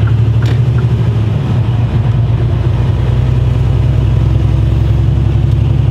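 A truck's diesel engine droning steadily at motorway cruising speed, with tyre and road noise, heard inside the cab.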